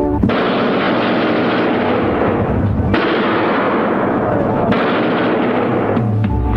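Film sound of an automatic rifle firing long, rapid bursts that fill the air with a continuous clatter, stopping about six seconds in.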